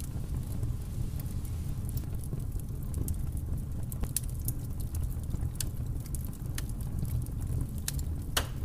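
Fire sound effect: a steady low rumble with scattered crackles and pops, one louder pop near the end.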